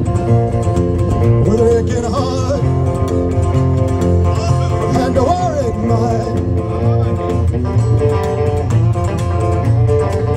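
Live rockabilly band playing: upright double bass keeping a steady beat under acoustic guitar and a hollow-body electric guitar.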